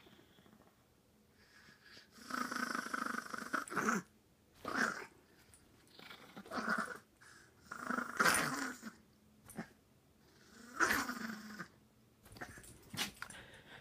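Small dog growling in a string of about six rough bursts at a hand petting it, the longest lasting about two seconds.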